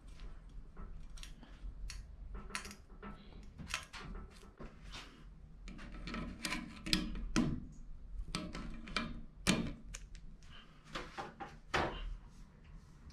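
Irregular clicks, knocks and rubbing of a hydronic zone valve's actuator head being handled and fitted onto its valve body on the heating pipe, with a few sharper knocks in the second half.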